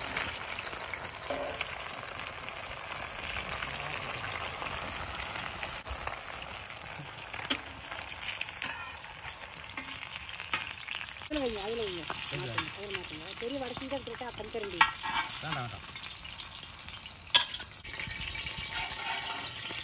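Fish steaks shallow-frying in oil in a wide iron kadai, sizzling steadily, with a few sharp clinks of a metal spatula against the pan.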